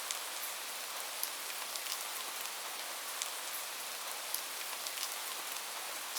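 Steady rain: an even hiss with individual drops ticking sharply here and there.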